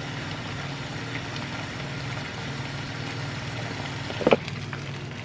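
Steady hum and hiss of a kitchen gas hob with a pot of pasta water at the boil. About four seconds in there is one short, sharp knock of a cooking utensil against a pan.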